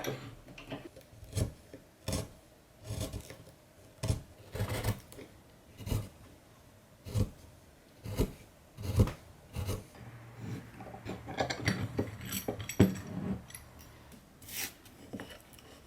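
Hand tool scraping a beech wood butter-knife blank in short, irregular strokes, about one a second.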